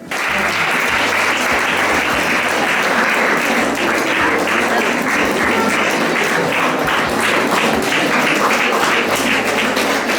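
Audience applauding: dense, steady clapping from many hands that starts abruptly.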